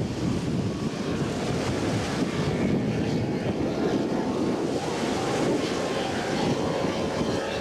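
Wind buffeting the microphone over open water, a steady rumbling rush, with a faint powerboat engine drone coming in over the last couple of seconds.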